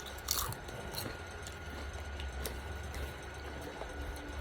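A bite into a crunchy tortilla chip loaded with sour cream about half a second in, then chewing with scattered small crunches and wet mouth sounds, over a steady low hum.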